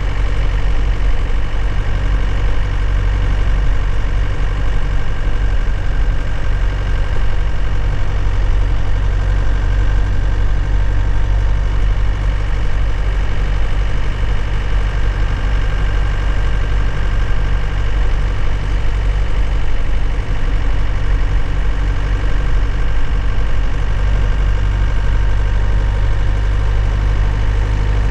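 2001 Nissan Cabstar truck's diesel engine running steadily, heard from inside the cab: an even, low drone with no revving or gear changes.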